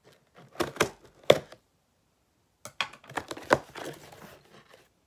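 Scissors slitting packing tape on a cardboard shipping box as the box is worked open: sharp snaps and crackling, two loud ones about a second in and a cluster around three seconds in, with cardboard rustling after.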